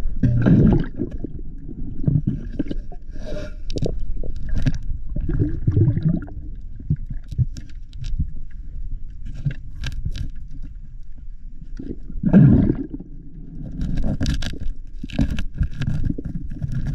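Underwater sound picked up by a diver's camera: low sloshing and rumbling of water moving around it, swelling about half a second in and again about twelve seconds in, with scattered sharp clicks and knocks throughout.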